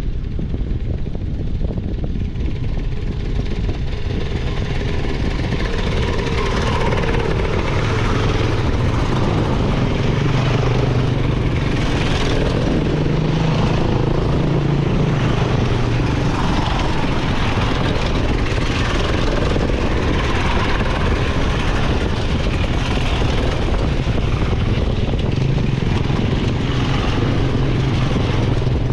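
A motor running steadily, with a strong rush of wind on the microphone.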